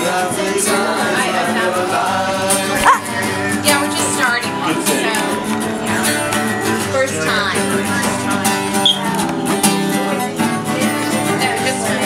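Two acoustic guitars strummed together with voices singing along. A brief sharp sound stands out about three seconds in.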